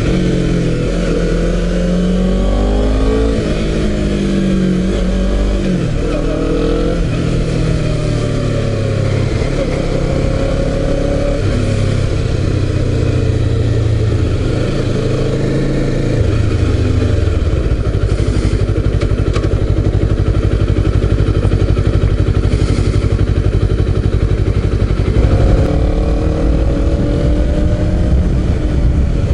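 Honda CBR250RR's 249 cc parallel-twin engine with an SC-Project exhaust, accelerating through the gears: the engine note rises and drops back several times in the first several seconds, then holds steady at cruising revs, and picks up again near the end.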